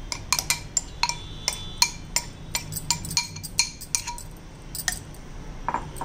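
A spoon clinking again and again against a glass mixing bowl, in short irregular taps with a brief ring, as soaked sago pearls are scooped and mixed into mashed potato.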